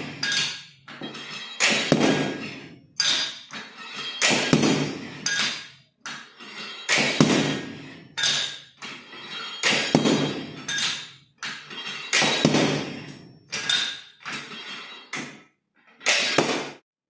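Aggregate impact value test apparatus: its heavy steel hammer (about 14 kg) is lifted and dropped again and again onto crushed stone aggregate in the steel cup. Each drop gives a sharp metallic blow with a short ring, roughly one a second. The blows crush the sample to measure the aggregate's resistance to sudden impact.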